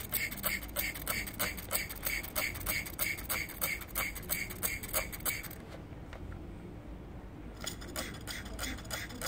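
Solvent being forced from a plastic bottle into a power-steering oil cooler's port, a rhythmic clicking pulse about four times a second that stops for about two seconds just past the middle, then resumes.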